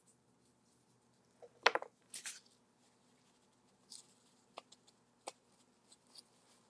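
Quiet handling sounds: a sharp click about a second and a half in, then short crinkling rustles and a few light ticks as a paper towel dabs and wipes antiquing gel off a resin rose.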